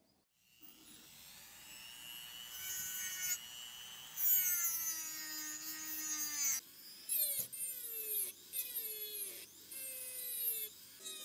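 Handheld rotary tool with a sanding drum whining at high speed as it sands rust off the steel frame of an antique gun. It starts up about half a second in. From a little past halfway its pitch sags and recovers roughly once a second as the drum is worked against the metal.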